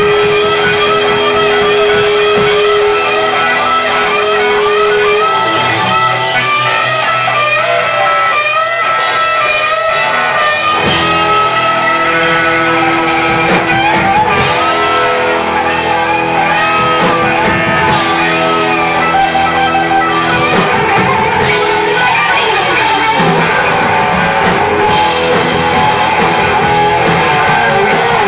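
Loud live dirty rock 'n' roll band: distorted electric guitars, one bending and wavering lead notes, over bass and drum kit. The cymbals and full drums come in hard about nine seconds in.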